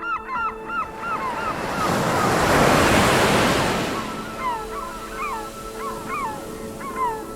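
Sea waves washing ashore, one wave swelling to its loudest about three seconds in and then drawing back, with gulls crying repeatedly: short falling calls at the start and again, several a second, from about four seconds in.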